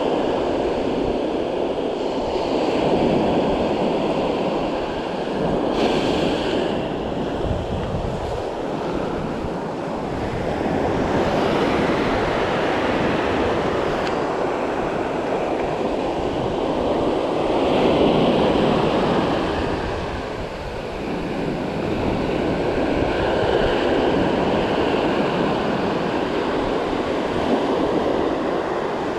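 Ocean surf breaking and washing up a sandy beach, rising and falling in loudness as each wave comes in.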